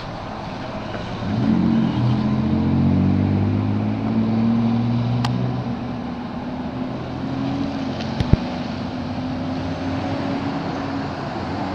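Large truck engine running close by, coming in strongly about a second in and then easing off slightly. There is a sharp click about eight seconds in.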